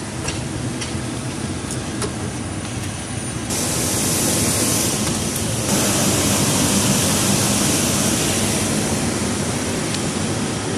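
Steady roar and hiss of jet aircraft machinery on an airport apron, with a low hum underneath. It grows louder and hissier about three and a half seconds in, and again near six seconds.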